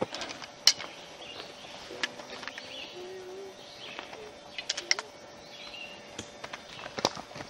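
Outdoor ambience with faint bird calls and a few short pitched chirps, broken by scattered sharp snaps and clicks.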